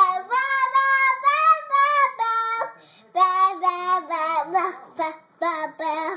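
A young girl singing a high tune in short notes, breaking off briefly about three seconds in.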